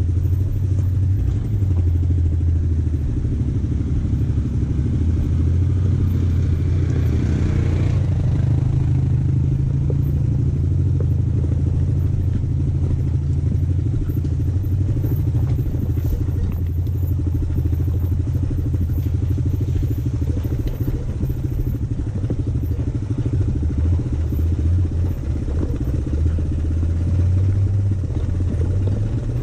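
Honda Fat Cat's single-cylinder four-stroke engine running steadily while riding on the trail, with a brief hiss about seven seconds in.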